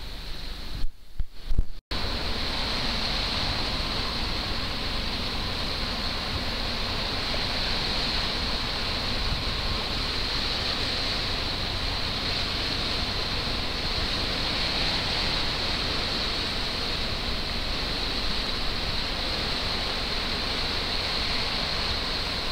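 Steady rushing of small waves washing against a rocky shoreline, mixed with some wind. About a second in there is a short muffled gap with a few thumps.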